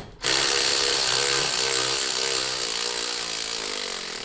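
Cordless drill running steadily with a motor whine that wavers slightly in pitch, then stopping abruptly near the end.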